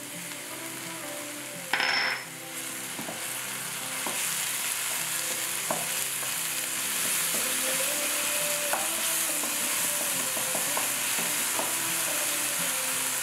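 Minced onion, garlic and ginger frying in oil in a stainless steel pan, a steady sizzle, with a wooden spoon scraping and tapping as green seasoning is spread through it. A short, louder burst comes about two seconds in, and the sizzle grows louder from about four seconds in.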